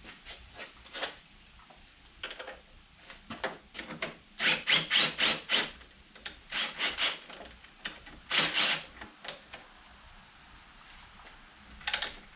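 Hand-tool work taking the bike's plastics and bolts off: short rough rasping strokes in quick runs, about five a second at the busiest, with pauses between the runs.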